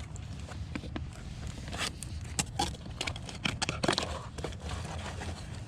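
Scattered sharp clicks, taps and crinkling from small parts being handled, over a steady low rumble.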